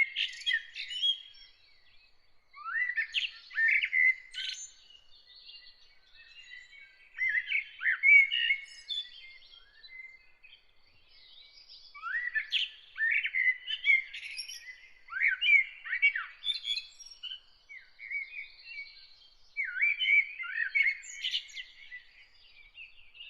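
Songbirds singing in bursts of quick chirps and sweeping notes that recur every few seconds, over a faint steady high-pitched trill.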